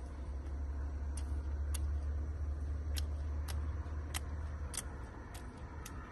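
Flaky crust of a baked bun crackling in sharp, irregular clicks, about eight in all, as it is torn apart by hand. A low steady rumble sits underneath and eases after about five seconds.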